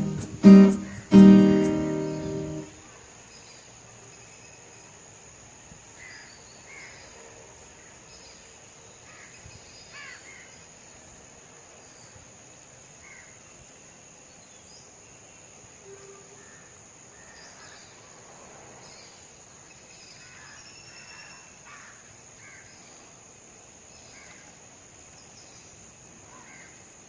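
Strummed acoustic guitar music that stops about two seconds in, followed by faint outdoor ambience: scattered short bird calls over a steady high-pitched insect drone.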